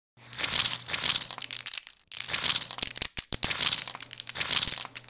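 Casino poker chips clicking and clattering as a hand rakes in and stacks them: a dense run of sharp clicks, broken by brief pauses around two and three seconds in.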